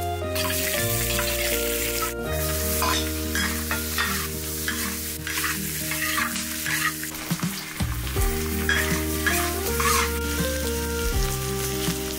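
Sliced potato cakes and cured bacon sizzling in a wok while a metal spatula stirs and scrapes through them. Background music with long held notes plays throughout.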